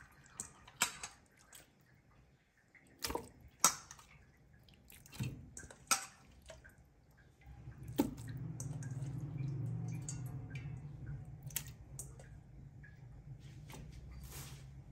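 Chopped raw chicken carcass pieces dropped by hand into a stockpot, landing as a series of wet slaps and knocks against the pot and each other. About halfway through, a steady low hum sets in and continues under them.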